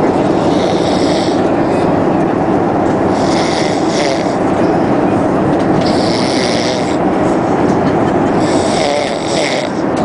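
A sleeping man snoring, four snores about every two and a half to three seconds, over the steady drone of an airliner cabin.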